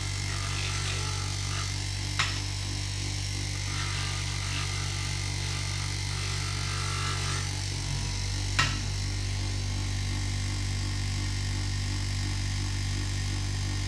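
Small bench grinder motor running steadily, spinning a 1000-grit polishing pad while a small stone is pressed against it for polishing. Two sharp clicks stand out, about two seconds in and again about eight and a half seconds in.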